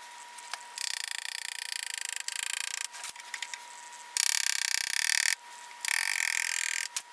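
Hand hammer driving a flat-bottomed punch against the threaded collar on a lathe's lead screw to turn it loose, heard as three runs of quick, light metallic tapping.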